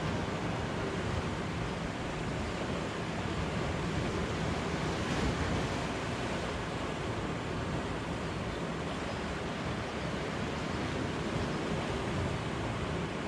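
Ocean surf washing steadily against the shore, with some wind on the microphone.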